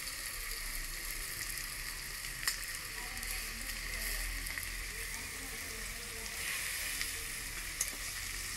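Freshly added sliced onions frying in hot oil, a steady sizzle, with a couple of faint clicks.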